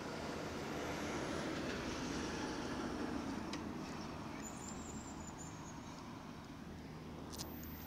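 City road traffic heard from a moving bicycle: a motor vehicle's noise swells about one to three seconds in and then fades, over a steady low hum.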